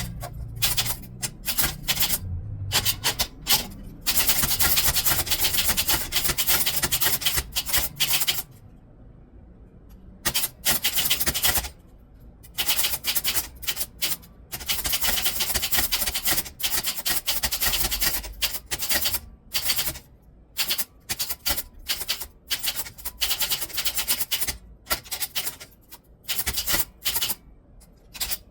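Typewriter keys struck in fast runs of rapid clacking, broken by short pauses.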